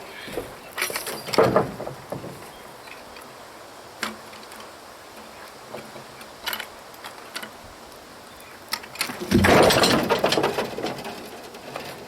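Wood being handled: scattered knocks and clatters, then one louder, longer rumbling clatter about nine seconds in.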